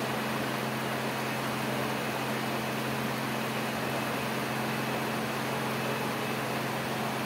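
Heavy rain falling steadily, a constant even hiss, with a steady low hum underneath.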